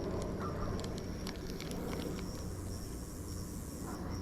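Insects droning steadily on one high note over a low steady hum, with a few sharp light clicks in the first second and a half.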